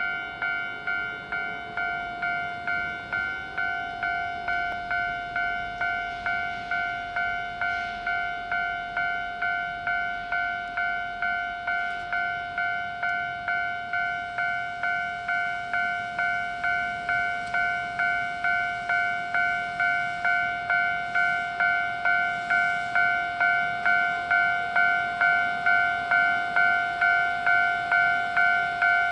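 Japanese railway level-crossing warning bell ringing its steady two-tone electronic chime, about one and a half strokes a second. It grows louder in the second half.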